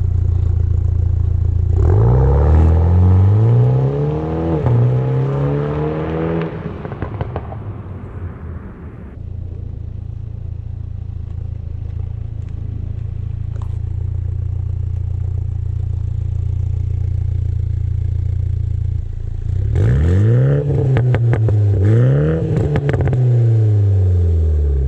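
Toyota GR Supra 2.0's turbocharged four-cylinder running through an FI Valvetronic exhaust, idling and then revved hard twice: once about two seconds in and again near the end. Each rev is a quick pair of blips that climbs and falls, with crackles and pops as the revs drop back to idle.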